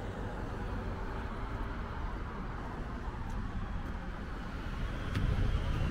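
Road traffic noise: a steady rumble of vehicles that swells near the end as one passes closer.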